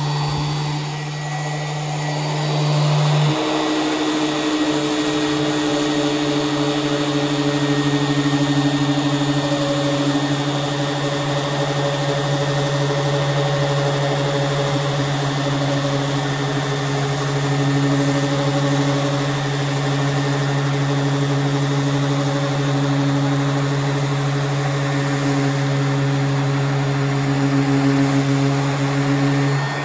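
Power sander running steadily against the steel body panel of a 1979 Chevrolet Impala, grinding away rust: a constant motor hum over a broad hiss. Its pitch shifts slightly about three seconds in.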